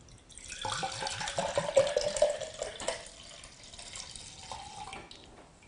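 Rice milk poured from a bottle into a plastic blender jar, splashing and gurgling as it fills. The pour is loudest in the first half, goes softer, and stops shortly before the end.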